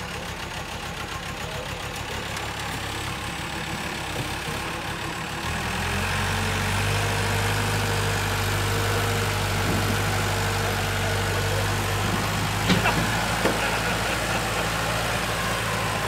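Diesel engine of a JLG telehandler running, throttling up to a louder, higher speed about five and a half seconds in as it takes the weight of a giant cypress log. A couple of sharp knocks sound near the end as the log shifts.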